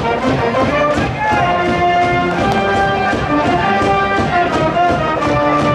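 Brass band music with a steady beat: trumpets and other brass holding pitched notes over a drum.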